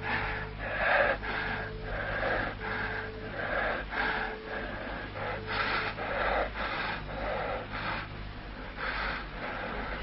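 A man's heavy, rapid panting, with a wheeze in many of the breaths, at a little over one breath a second. A low steady hum runs underneath.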